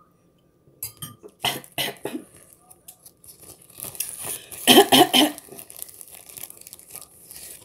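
A woman coughing in short fits: a few coughs about a second or two in, then a louder run of coughs about five seconds in.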